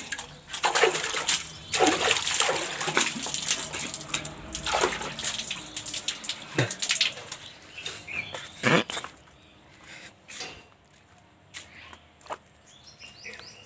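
Water splashing and pouring onto a concrete floor in a quick run of splashes, dying away about nine seconds in. After that there are only a few light knocks and faint chirps.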